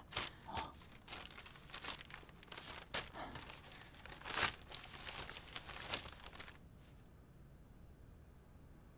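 Paper rustling and crinkling in irregular bursts as a letter is handled and opened, stopping about six and a half seconds in.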